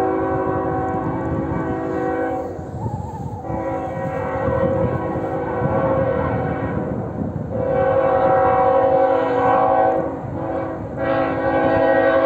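Diesel freight locomotive's multi-note air horn sounding a series of long blasts, each a steady chord, with short breaks between them, over a low, steady rumble from the approaching train.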